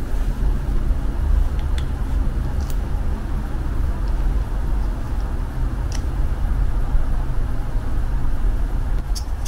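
A steady low rumble, with a few faint clicks and taps from a plastic plunger cookie cutter being pressed into dough and released.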